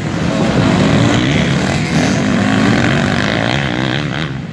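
Several motocross bikes revving through a corner, their engine pitch rising and falling as the riders go on and off the throttle. Near the end the sound drops off as the bikes pull away.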